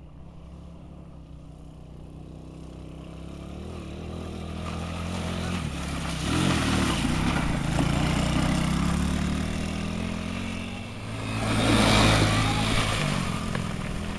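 TaoTao ATA-110D 110cc ATV's small single-cylinder four-stroke engine revving as the quad drives closer, growing louder over several seconds and staying loud as it passes close by. Near the end a second, louder swell comes with a rush of noise as the tyres churn through mud.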